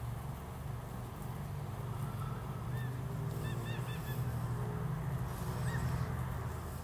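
Outdoor field ambience: a steady low rumble, with a few short, high bird chirps about three to four seconds in and once more near six seconds, over faint low animal calls.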